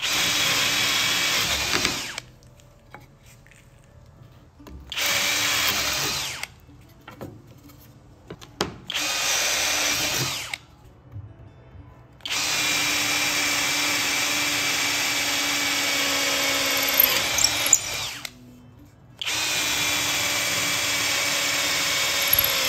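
HOTO 12V cordless brushless drill, set to speed 30, boring holes with a drill bit through a series of wood boards: soft pine, plywood, MDF, walnut and hard maple. Five separate bursts of steady motor running with quiet pauses between them. The longest, about six seconds, is through the walnut about halfway through.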